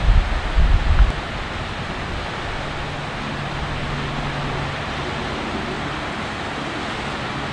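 Wind buffeting the microphone for about the first second, then a steady, even rushing noise.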